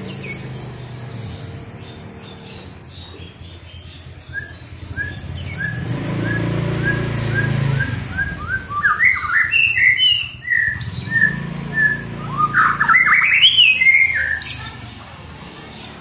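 White-rumped shama (murai batu) singing: a run of short repeated notes, two or three a second, then twice a louder burst of quick rising and falling notes. A low rumble runs underneath, strongest in the middle.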